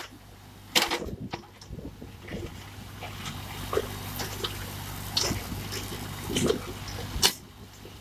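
Backhoe loader's tractor engine running steadily while the backhoe bucket digs into broken concrete and brick rubble, giving several sharp clanks and scrapes of steel on rubble, the loudest near the end.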